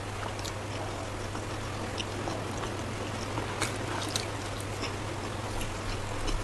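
A person chewing stuffed paratha close to the microphone: scattered small wet mouth clicks and crackles, two sharper ones about three and a half and four seconds in. A steady low hum and hiss run underneath.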